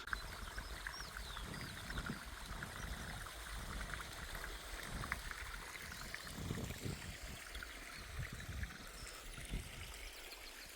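Steady rush of running water, with a few soft low thumps.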